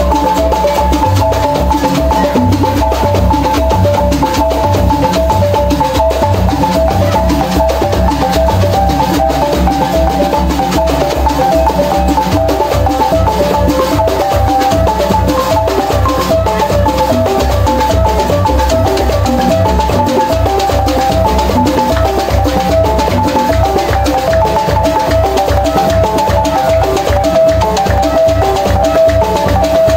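Senoufo balafon, a wooden xylophone, playing a fast repeating melodic pattern over a steady drum beat: dance music.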